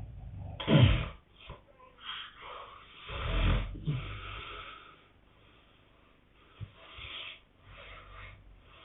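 Sleeping people snoring: a loud snort with a falling pitch about a second in, a long heavy snore around three and a half seconds, then quieter wheezy breaths.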